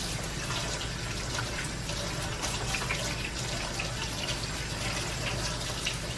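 Kitchen tap running steadily into the sink while hands are washed under it.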